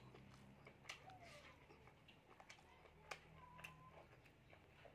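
Near silence broken by a few faint wet clicks and smacks of a mouth chewing food.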